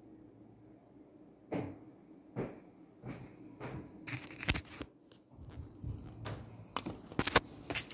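Handling noise from a phone being picked up and carried: after a second and a half of quiet room tone, a string of irregular knocks and sharp clicks, the sharpest a cluster near the end.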